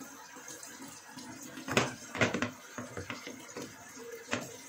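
Metal spoon clinking and scraping against a ceramic bowl while stirring flour and water into a batter, with a cluster of sharp clinks about two seconds in and another near the end.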